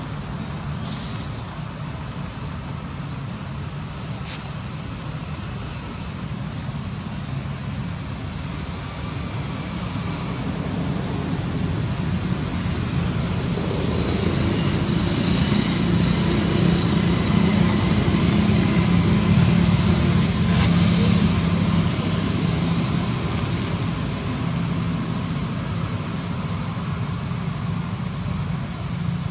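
Road traffic: a steady low motor-vehicle engine hum that grows louder toward the middle and then fades somewhat, as if a vehicle passes close by.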